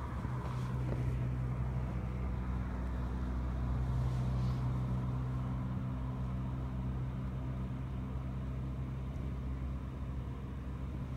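Vehicle engine running steadily nearby, a constant low hum with road noise around it.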